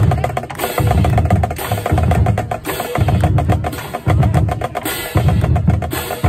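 Background music with a steady drum beat: a heavy low drum hit about once a second under quicker percussion.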